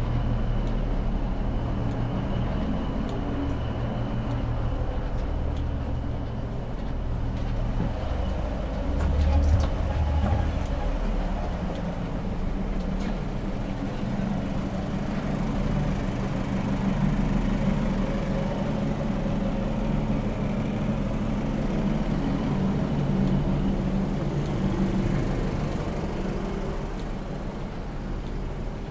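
Class 156 diesel multiple unit's underfloor Cummins diesel engine running, heard inside the carriage as a steady low hum. There is a brief louder low swell about nine seconds in.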